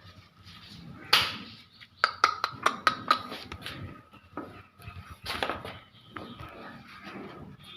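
Metal clinking and clanking: a quick run of sharp, ringing clinks about two seconds in, with louder noisy swells about a second in and again about five seconds in.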